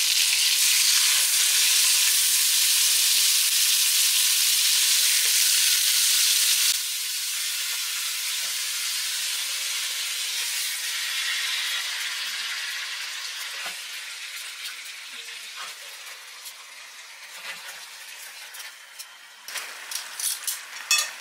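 Hot oil and melted margarine sizzling in a pot as pieces of raw chicken are laid in. The sizzle drops suddenly about seven seconds in and then fades steadily. Scattered small crackles and knocks come near the end.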